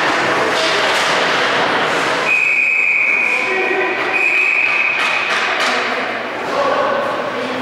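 Ice hockey play on the rink, skates and sticks on the ice with thuds, then a referee's whistle blown in two long, steady blasts a little over two seconds in, signalling a stoppage of play. Players' voices near the end.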